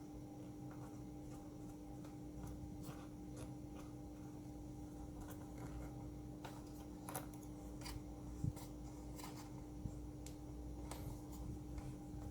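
Faint scattered clicks and light scrapes of a small screwdriver and parts being handled while a MacBook Pro is put back together, three of the clicks sharper than the rest, over a steady low hum.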